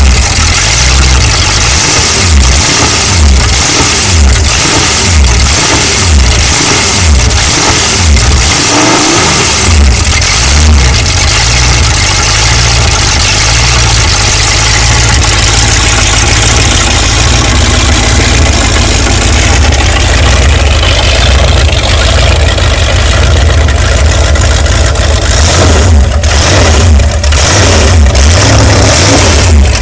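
A 1976 Eliminator jet boat's engine running very loud. It revs unevenly for about the first ten seconds, then settles to a steadier speed.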